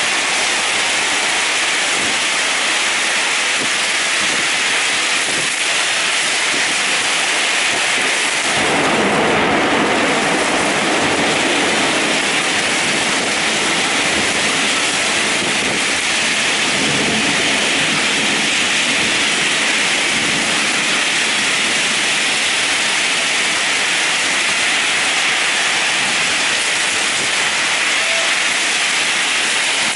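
Heavy rain pouring down steadily, with a roll of thunder rumbling in about eight seconds in and dying away over several seconds, and a fainter rumble around seventeen seconds.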